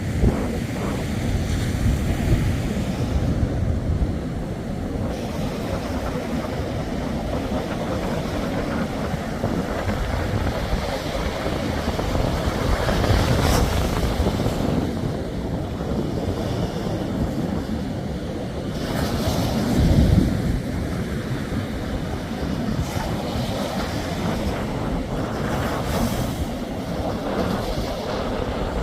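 Sea surf washing onto the shore, with swells about 13 and 20 seconds in, while wind buffets the microphone.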